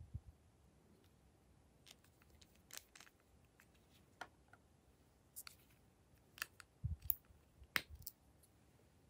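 Faint clicks and taps of small plastic cosmetic containers being handled, with a few soft knocks and a sharper click near the end as a plastic eyeshadow compact's lid snaps open.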